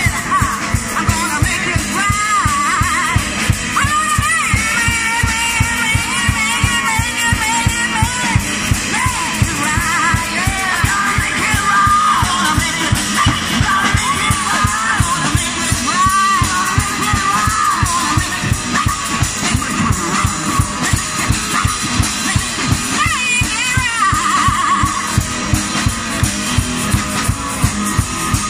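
A woman singing a gospel-style song in sustained, wavering phrases over a backing of guitar and drums with a fast, steady beat. The vocal lines are strongest in the first half and return briefly about two-thirds of the way through.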